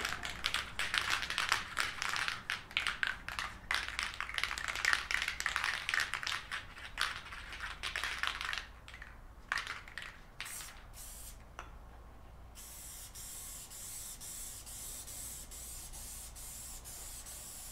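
Aerosol can of spray adhesive shaken hard, with a fast clattering rattle, for about eight seconds, then a few more shakes. From about twelve seconds in comes a steady high hiss as the adhesive is sprayed.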